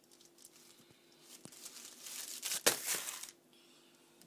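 Wrapping paper crinkling and tearing as a present is unwrapped by hand. The rustle comes about halfway through and lasts a little over a second, with one sharp crackle as its loudest moment.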